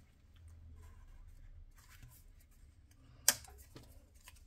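Faint rustling of paper and sticker sheets being handled, with one sharp tap about three seconds in.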